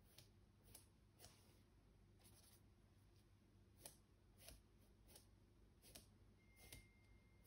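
Faint, short scratchy strokes, about one every half second to second: a paintbrush working oil paint.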